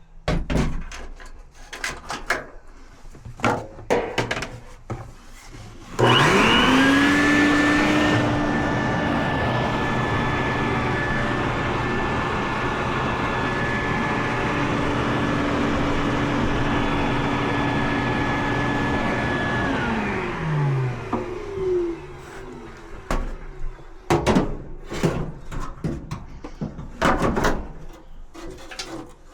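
Scattered clicks and knocks, then about six seconds in an electric motor starts with a rush of air, rising in pitch as it spins up. It runs steadily for about fourteen seconds, then winds down with a falling pitch, and the clicks and knocks return.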